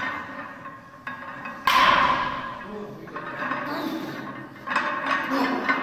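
Iron weight plates on a 200 kg barbell clanking as the bar is shrugged up and down: a series of sharp metallic knocks with short ringing, the loudest about two seconds in.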